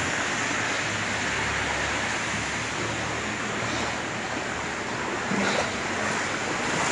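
Steady hiss of heavy thunderstorm rain pouring onto floodwater covering a street. There is a brief knock about five and a half seconds in.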